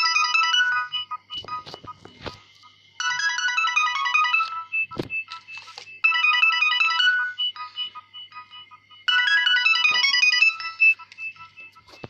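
A Nokia 6030 polyphonic ringtone playing through a Nokia 2630's small loudspeaker: a bright electronic melody phrase, about a second and a half long, sounds four times, about every three seconds. Short clicks and knocks fall in the gaps between phrases.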